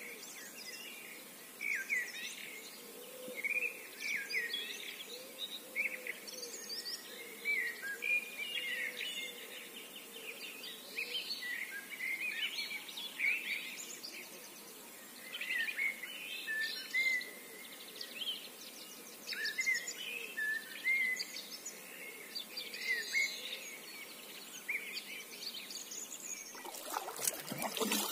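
A chorus of small songbirds, with many short chirps, trills and twitters overlapping. Near the end a kayak paddle stroke splashes and trickles in the water.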